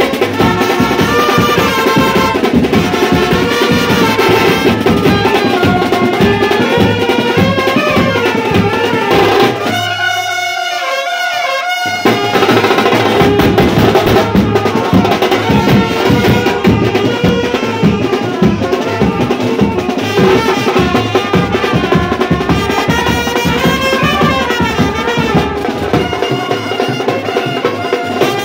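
Indian street brass band playing: trumpets and saxophone carry a lively melody over pounding bass drums. About ten seconds in the drums stop for roughly two seconds while the horns hold one note, then the full band comes back in.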